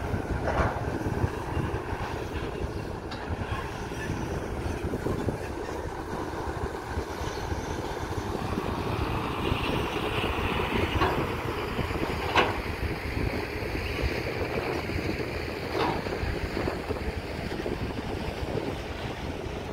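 Heavy diesel engines running steadily, from a dump truck driving and manoeuvring and a Caterpillar excavator at work, with a few sharp clanks now and then.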